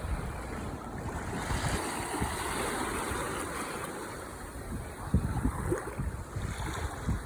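Ocean surf washing on the shore, a steady hiss that swells about two seconds in. In the second half, short low gusts of wind rumble on the microphone.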